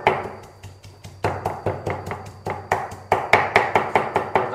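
A heavy cleaver chopping boiled pork on a thick round wooden chopping block: rapid, even strikes about five a second, easing off briefly near the start and then picking up again.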